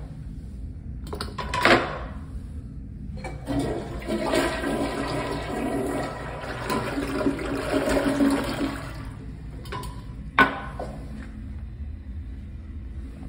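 Kohler Wellworth gravity-tank toilet flushing: a clunk about two seconds in, then a loud rush and gurgle of water through the bowl for about five seconds. A sharp knock follows about ten seconds in, with water still running more quietly after it.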